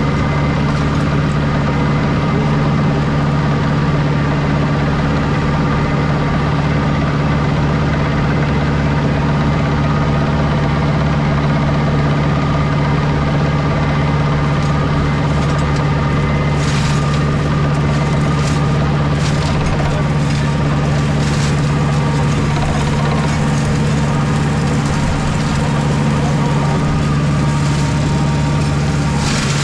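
Two-wheel tractor's engine running steadily under load as its flail mulcher chews through dense blackberry brush. In the middle comes a run of sharp cracks as the flails shred woody canes.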